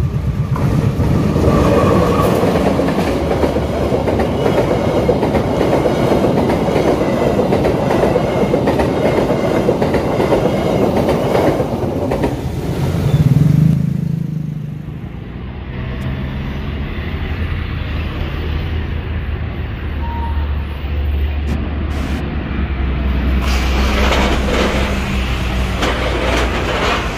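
A train passing over a level crossing, its wheels clattering on the rails for about the first twelve seconds. Motorcycle engines rev as the riders move off across the tracks. After that, a fuel tanker truck's engine runs in a low, steady rumble as it drives slowly by.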